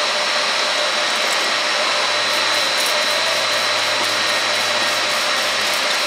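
Steady loud rushing noise of running machinery or ventilation; over it, from about a second in, yeast slurry splatters as it runs from a fermenter's bottom valve into a glass growler and onto the floor.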